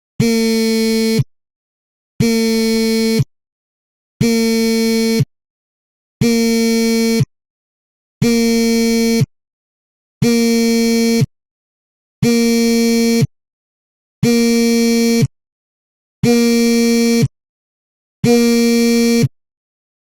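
Mobile phone vibrating on a table: ten buzzes, each about a second long with a second of silence between them, the repeating pattern of an incoming call.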